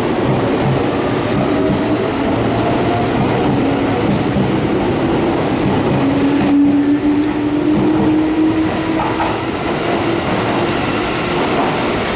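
Meitetsu 6800 series electric train, two sets coupled, pulling out of the platform and gathering speed past the listener: a steady wheel rumble and clatter, with a faint motor whine that rises slowly in pitch.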